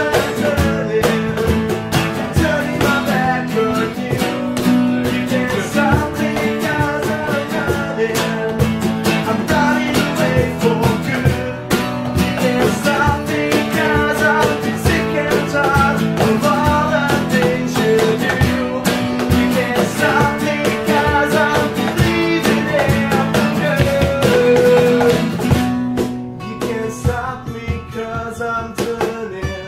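Acoustic band music: strummed acoustic guitars over a cajon beat, with singing. Near the end the playing thins out and gets quieter.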